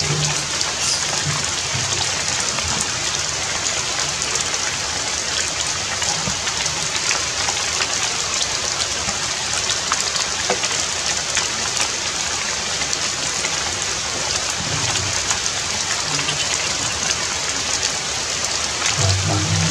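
Steady rain falling, a dense even hiss with many individual drops ticking on surfaces.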